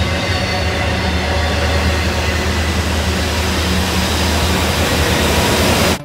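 Double-stack intermodal freight train rolling past, a steady loud rumble of wheels on rail with a strong low hum.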